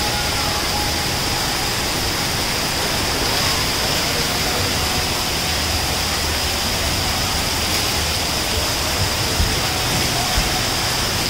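Steady rush and hiss of water spraying and pouring from the pipes and nozzles of a water-park play structure.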